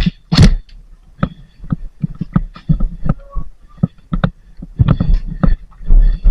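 Irregular sharp knocks and thuds, roughly two a second, with a louder burst of clatter about half a second in.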